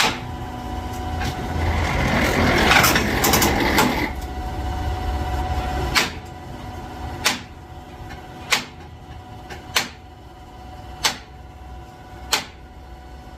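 Metal striking metal in regular single blows, about one every second and a quarter from about six seconds in, each with a short ring. Before that comes a dense, harsh rush of machine noise, loudest between two and four seconds in.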